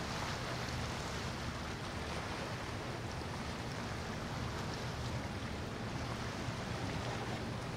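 Motor yacht passing at cruising speed: a steady low engine drone under a constant wash of wind and choppy water.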